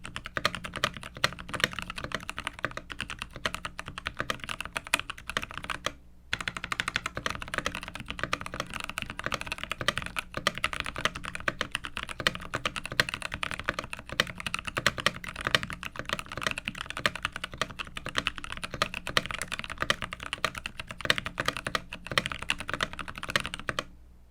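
Typing on a mechanical keyboard fitted with Lychee tactile switches: a fast, continuous run of keystrokes with a muted sound. The typing pauses briefly about six seconds in and stops just before the end.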